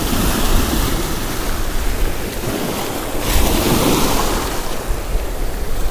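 Small shore waves breaking and washing up over a pebble beach, with a louder wash about three seconds in, and wind rumbling on the microphone.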